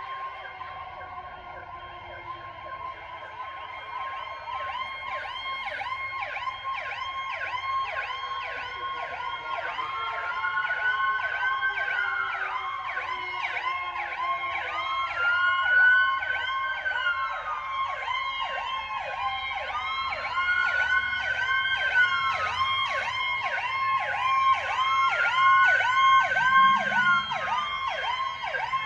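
Several emergency-vehicle sirens from police cars and a fire truck sound together. A fast yelp cycles about three times a second, with a slower wail rising and falling about every five seconds. They grow steadily louder as the vehicles approach.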